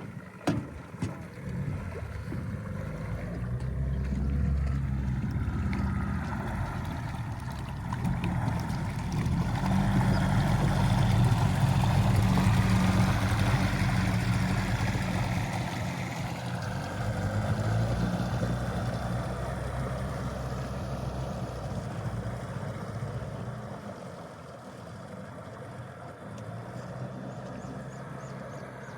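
A small boat's outboard motor running, swelling to its loudest about halfway through and then easing off. A couple of sharp knocks sound right at the start.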